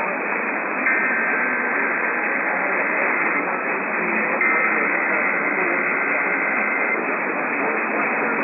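Noisy radio reception: a steady static hiss cut off above and below like an AM broadcast. It carries two stretches of the Emergency Alert System's SAME header data tones, a pair of high steady tones, the first starting about a second in and the second about halfway through.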